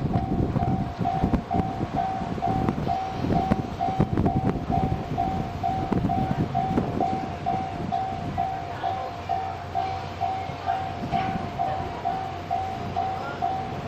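Level-crossing warning bell ringing in an even, repeated ding while the Twilight Express Mizukaze sleeper train rumbles past, its wheels clattering on the track. The rumble and clatter ease off in the second half as the bell keeps ringing.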